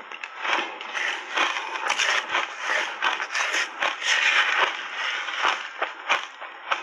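Shaved ice being chewed with the mouth closed: a dense, irregular run of crisp crunches.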